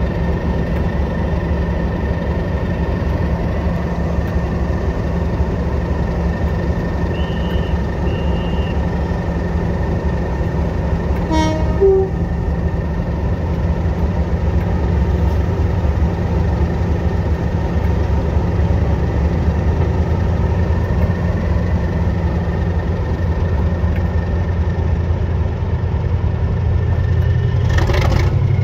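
Diesel locomotive engine running steadily with a deep, even drone, and a brief horn toot about twelve seconds in.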